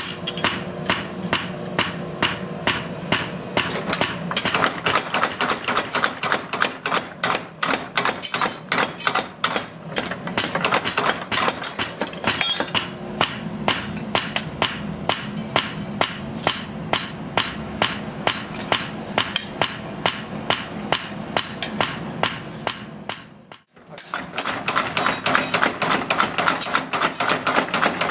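Rapid, even hammer blows on steel at the anvil as a Japanese knife blade is forged, about four or five strikes a second. The hammering breaks off briefly near the end, then resumes.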